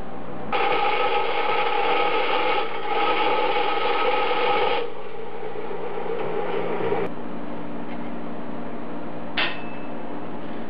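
Vertical bandsaw cutting stainless steel sheet: a steady ringing, hissing cut that starts about half a second in, eases after about five seconds and stops abruptly around seven seconds. A steady low hum follows, with a single sharp click near the end.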